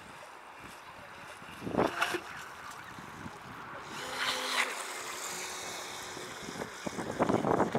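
Faint high whine of an RC jet boat's motor running out on the water, easing slightly lower in pitch in the second half, with wind on the microphone and two brief rushes of noise.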